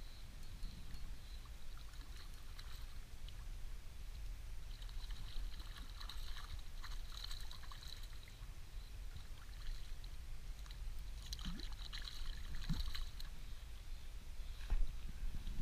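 A hooked rainbow trout splashing and thrashing at the surface beside an inflatable boat as it is played in, over a steady low rumble.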